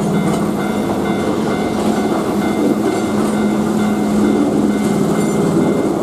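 Keihan 2400 series electric commuter train passing at speed, a steady rumble of wheels on rail with a motor hum. The level crossing's warning bell rings in the background.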